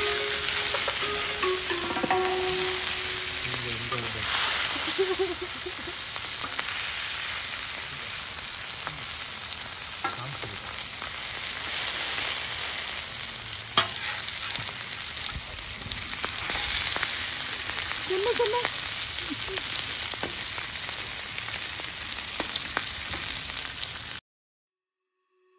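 Oil sizzling steadily on a flat-top griddle under a whole marinated yellowtail fish frying on low heat, with one sharp click a little past halfway. The sizzle cuts off suddenly near the end.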